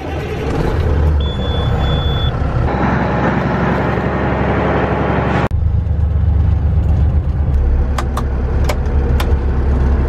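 Truck engine running just after the key is turned, with a short steady beep about a second in; then the truck driving, its engine droning low, with a few sharp clicks near the end.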